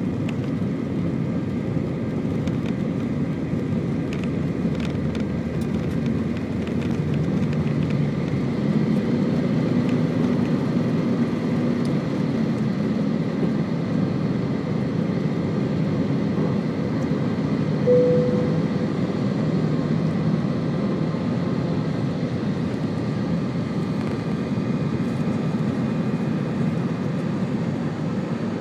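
easyJet airliner's jet engines running at takeoff power, a steady drone with a few steady tones over it. A short higher tone sounds briefly about two-thirds of the way through.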